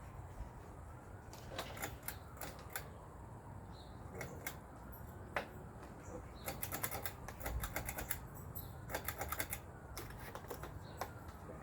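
Homemade ceiling fan running on low speed, giving off irregular clicking and rattling in quick clusters, with a faint whine that rises and falls over and over. The fan is loose and its blades droop.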